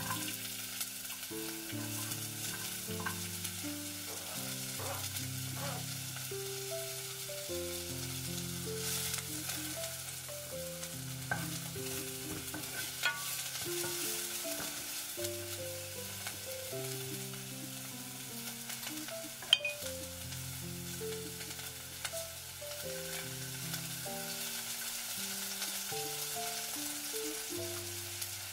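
Chopped vegetables and noodles sizzling in a saucepan as they are stirred with a wooden spoon, with a few sharp knocks of the spoon against the pan. Soft background music of slow held notes plays underneath.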